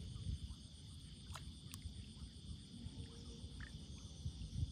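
Night insects chirring steadily in a continuous high chorus, over a low rumble with a couple of faint clicks.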